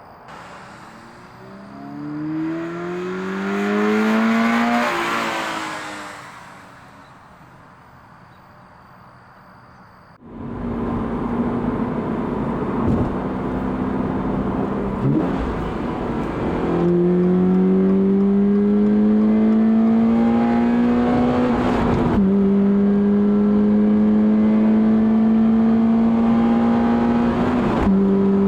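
Toyota GR86's 2.4-litre flat-four engine with a K&N cold air intake, its induction noise to the fore. The engine rises in pitch and loudness, then falls away. About ten seconds in it turns suddenly much louder and pulls hard, pitch climbing steadily, with gear changes breaking the tone three times.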